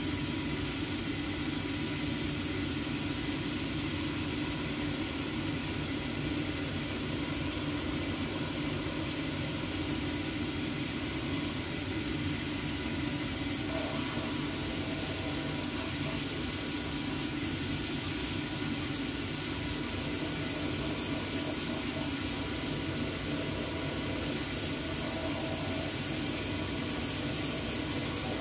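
Shoe-repair finishing machine running steadily, its motor and spinning wheels going as a shoe is held against the roughing wheel to scuff the sole area for gluing.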